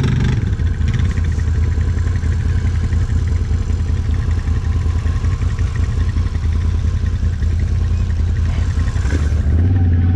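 Can-Am 1000 side-by-side's V-twin engine running steadily under load as it creeps up over a small hump, getting a little louder near the end.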